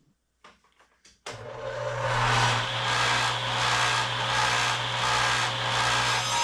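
Table saw cutting a wooden board. After about a second of near silence with a few faint clicks, the saw's sound cuts in suddenly and then runs steadily and loud, a motor hum under the noise of the blade in the wood.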